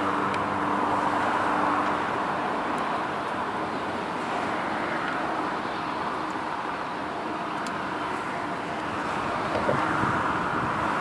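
Steady roar of vehicle noise, with a faint humming tone that fades out about two seconds in.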